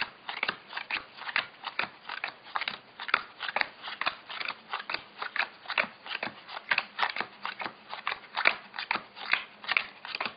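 Bicycle playing cards being dealt one by one off the deck onto a cloth-covered table into three piles: a quick, regular run of light card snaps and flicks, about four a second.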